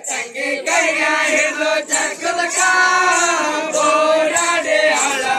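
A group of men sings a Rivayat pada, a North Karnataka Muharram folk song, together in unison. The phrases are long and held, with short breaks between them.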